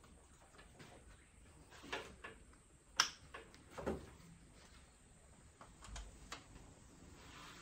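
Light clicks and knocks of hands fitting spark-plug leads in a car's engine bay, with one sharp click about three seconds in and a couple of dull thuds around it.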